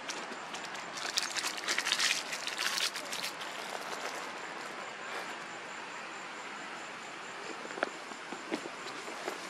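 Steady chorus of summer insects with a thin, even high whine. A quick run of scratchy clicks and crackles comes about a second in and lasts two seconds or so, with a few single clicks near the end.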